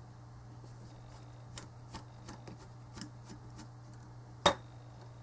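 Screwdriver working a small screw loose from the sheet-metal chassis of a car stereo's CD mechanism: faint scattered ticks and scrapes, with one sharper click about four and a half seconds in.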